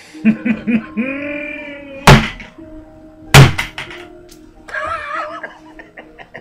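Two loud whacks about a second and a half apart, staged blows with a club or stake, between short vocal cries, over quiet background music.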